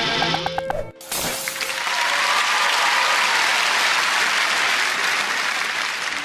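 A short string-music sting with plucked notes stops abruptly about a second in. A theatre audience then applauds steadily, easing off slightly near the end.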